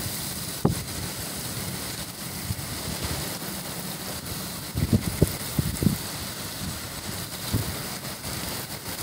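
Hurricane wind and rain: a steady hiss of driven rain, with gusts buffeting the microphone in short low rumbles, the strongest cluster about five to six seconds in.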